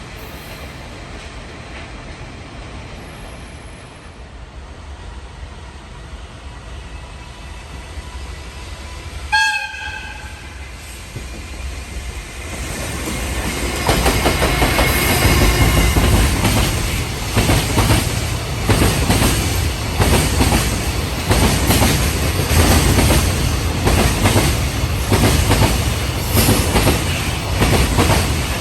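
A short horn blast about a third of the way in. Then an electric-hauled freight train arrives and passes, loud, with traction motors and wheels rumbling and the wheels clattering again and again over the rail joints.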